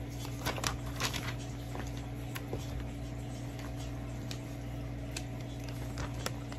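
Pages of a paper catalog being handled and turned: a few short rustles and clicks over a steady low hum.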